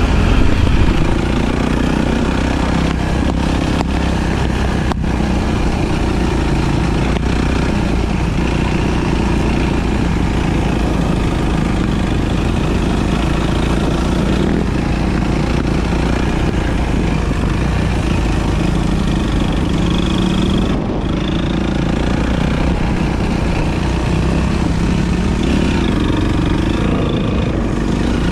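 Enduro motorcycle engine running under way, its note rising and falling as the revs change.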